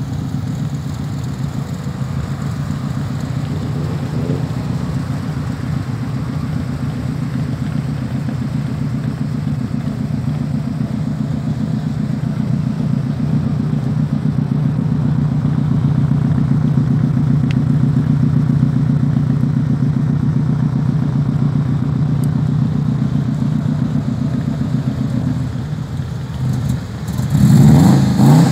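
Subaru Impreza rally car's flat-four engine idling steadily at close range, then revved near the end.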